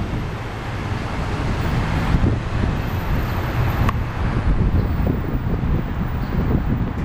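Wind buffeting the camera microphone, a heavy fluttering rumble, over the steady hum of street traffic.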